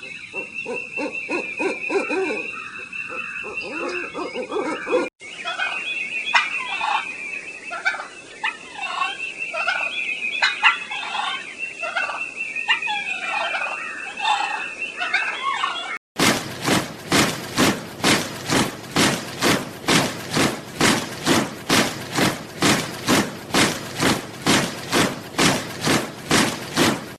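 Turkey clucking and purring in repeated short calls. About sixteen seconds in it cuts to soldiers marching in step, about two steps a second.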